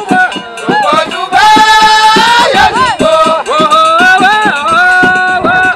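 A man singing with a Moroccan folk troupe: a voice draws out long notes that slide up and down, one held for about a second near the middle.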